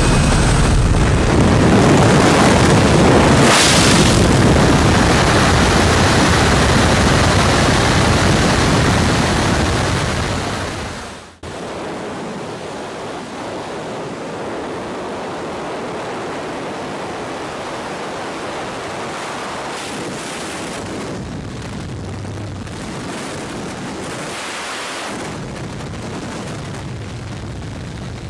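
Strong wind rushing over the microphone during a skydive freefall, cutting off sharply about eleven seconds in and giving way to a softer, steady wind rush with a few brief gusts.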